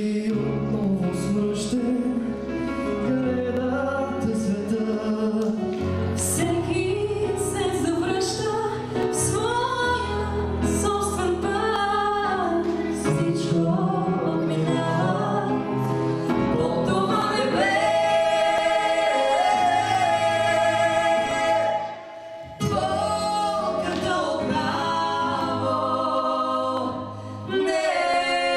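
A man and a woman singing a duet into microphones over musical accompaniment, with a brief break a little past two-thirds of the way through.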